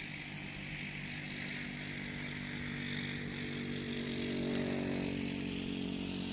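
A vehicle engine running steadily nearby, its hum growing louder to a peak about two-thirds of the way in and then easing off.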